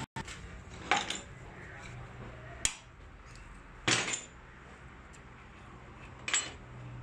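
Four sharp metallic clinks spread a second or more apart: a steel wrench set on and worked against the head of a diesel injection pump clamped in a bench vise.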